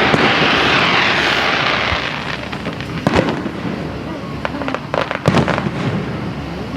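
Aerial fireworks display: a dense hissing crackle for about two seconds, then sharp bangs about three seconds in and a close pair around five seconds.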